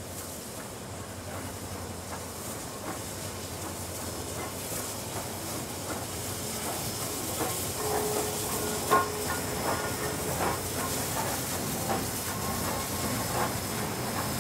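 Reading T-1 4-8-4 steam locomotive passing with a passenger train, a steady rumble and hiss of steam growing louder as it nears. From about halfway through, its tender and the cars roll by with wheels clicking and knocking over the rail joints, one sharp knock standing out about 9 seconds in.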